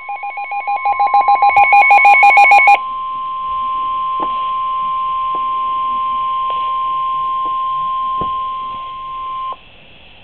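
NOAA Weather Radio's 1050 Hz warning alarm tone: a single steady high tone that cuts off suddenly about nine and a half seconds in. For the first few seconds a rapid beeping of two other alternating tones sounds over it, growing louder, then stops abruptly just under three seconds in. The alarm tone signals an emergency alert, here a severe thunderstorm warning.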